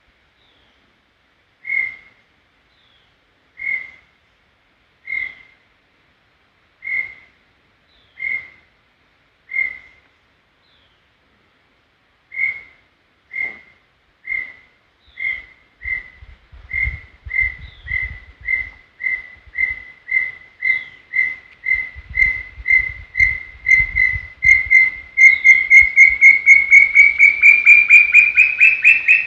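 Brown tinamou (inhambuguaçu) singing: single clear whistled notes, slow and evenly spaced at first, coming faster and louder into a rapid run that rises in pitch near the end.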